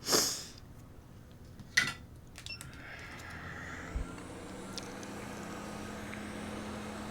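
Hot air rework station blowing steadily with a low fan hum, reflowing the solder balls on a reball stencil until they turn shiny. It is preceded by a short hiss at the start and a click about two seconds in.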